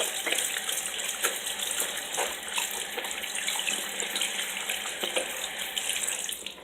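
Water running from a tap into a sink while hands are washed under it, a steady rush with small irregular splashes, shut off at the very end.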